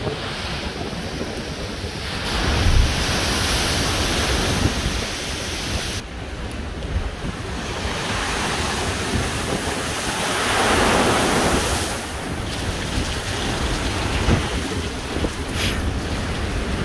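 Storm waves crashing against the sea wall and throwing spray over the promenade, with wind buffeting the microphone. A heavy surge comes about two to three seconds in, and a long wash of spray near the middle.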